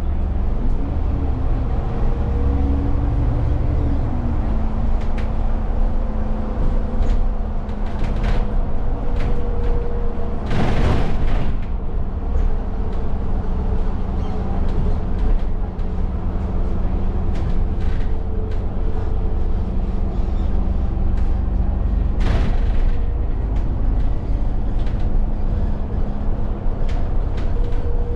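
Inside an Alexander Dennis Enviro400 double-deck bus under way: the diesel engine and drivetrain drone steadily, with the engine note rising in the first few seconds and light rattles from the body. Two short bursts of hiss come about eleven and twenty-two seconds in.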